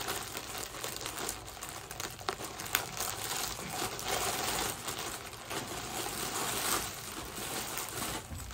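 A large clear plastic packaging bag crinkling and rustling as it is pulled open and handled, with sharp crackles throughout.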